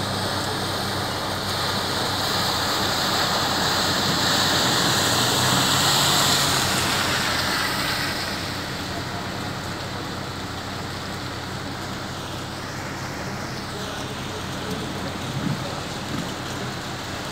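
Heavy rain falling in a dense, steady hiss that swells louder for a few seconds in the first half, then eases, with a low steady hum underneath.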